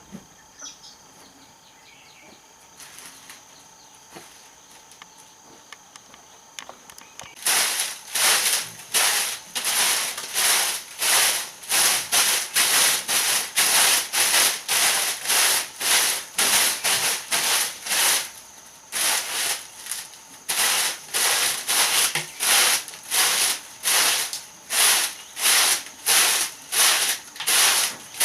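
After several quiet seconds, a hand tool starts working wood in steady back-and-forth strokes, about two a second, pausing briefly twice.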